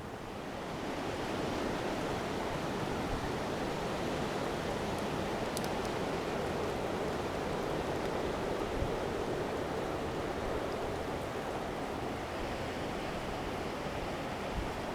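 Steady rushing noise of a coastal storm, building up about a second in and then holding.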